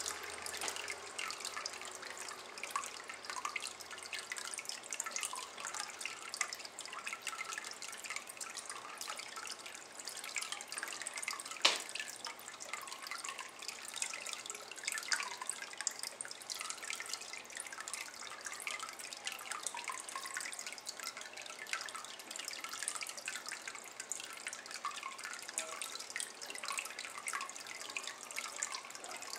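A thin stream of water trickling and dripping into a shallow water-filled ceramic bowl, a steady patter of small drips. One sharp click stands out about twelve seconds in.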